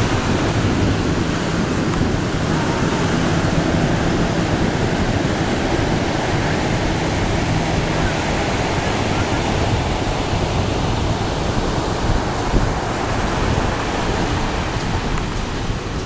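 Sea surf breaking and washing up a sandy beach, a steady rushing noise.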